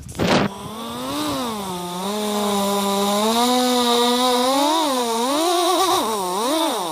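A person imitating a quadcopter drone with their mouth: one long buzzing hum of about six seconds, its pitch swelling and dipping several times, after a short noisy burst at the start.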